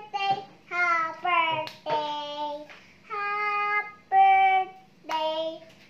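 A young girl singing in a high child's voice, a run of short held notes with brief breaks between them, and two sharp clicks, about one and a half and five seconds in.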